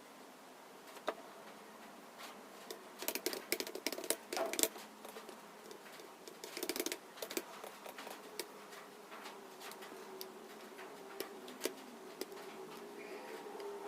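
Computer keyboard typing in short bursts of quick key clicks, with scattered single keystrokes between them.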